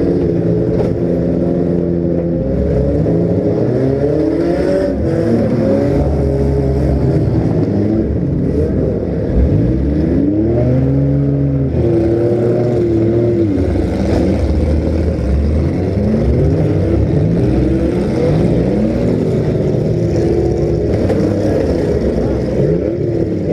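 Several compact-car engines revving, their pitches rising and falling over one another as the cars accelerate and back off in a demolition derby heat. A few faint knocks come through, about five and nine seconds in.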